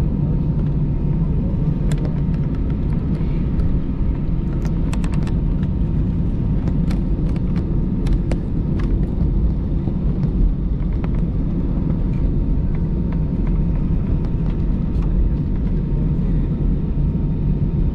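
Steady low rumble inside the cabin of an Airbus A320-family jet taxiing on its engines, with a faint steady tone and a few small clicks.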